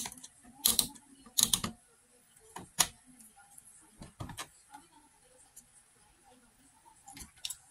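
Irregular sharp clicks and knocks of handling, about half a dozen, the loudest about a second in and again about a second and a half in, with one near the end.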